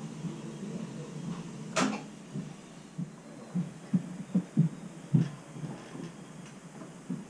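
Irregular dull thumps and knocks, with one sharper knock about two seconds in, over a low steady hum.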